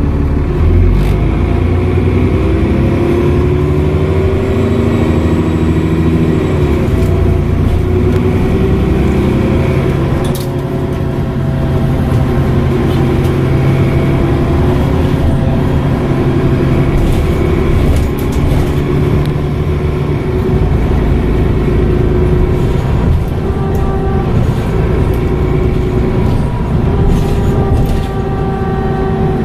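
Dennis Trident double-decker bus's diesel engine running on the road, its pitch rising and falling again and again as it pulls away and the Voith automatic gearbox changes gear. A faint high turbocharger whistle rides over it, with a few short knocks and rattles.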